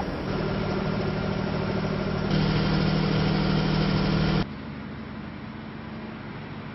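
Diesel engine of a Merlo telehandler running steadily with a low drone as the machine drives along. About four and a half seconds in, the sound drops abruptly to a quieter, steady engine hum.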